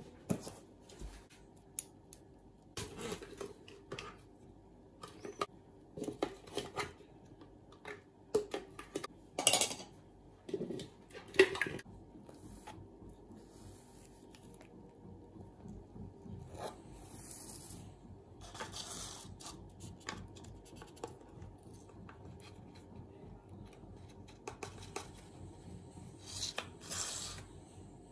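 Metal spoon, then a plastic ice-cream scoop, scraping and dragging through thick frozen strawberry ice cream in a plastic bowl. Short scrapes and knocks come in quick succession during the first half, then softer, longer rubbing strokes follow.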